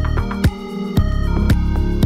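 Electronic background music with a steady beat, about two beats a second, over sustained bass notes.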